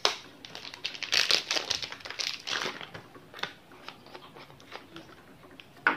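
Thin plastic packaging crinkling and crackling in irregular bursts as ink bottles are handled and unwrapped, busiest in the first few seconds.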